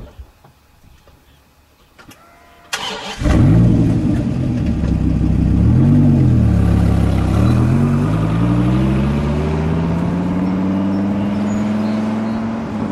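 Dodge Viper V10 engine cranking briefly and catching about three seconds in. It revs up and back down once, then climbs steadily in pitch for several seconds.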